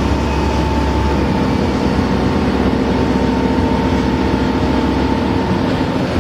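Mercedes-engined Optare Solo bus with an Allison automatic gearbox under way: a steady engine drone with a high, whiny tone over it. The whine fades out near the end.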